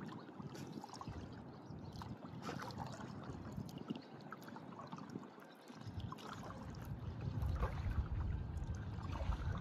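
Water lapping and trickling against the hull of an Intex K2 Explorer inflatable kayak as it drifts, with many small irregular splashes. A low wind rumble on the microphone builds in the last few seconds.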